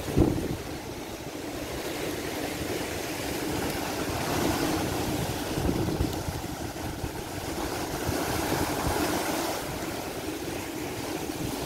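Red Sea waves breaking and washing against a rocky shore, swelling and easing every few seconds, with strong wind rumbling on the microphone. A brief loud burst comes right at the start.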